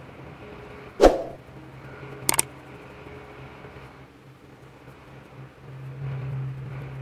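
Pencil drawing on paper over a steady low hum, broken by a sharp knock about a second in and a quick double click a little after two seconds.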